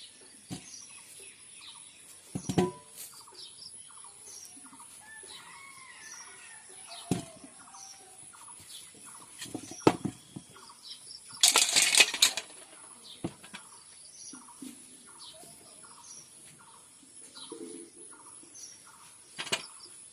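A bird's wings flapping in a loud burst about twelve seconds in, among scattered sharp knocks and short faint chirps.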